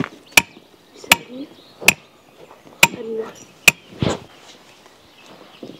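Hammer blows on a metal tent peg: six sharp, ringing strikes at an uneven pace of roughly one a second, then a duller thump about four seconds in.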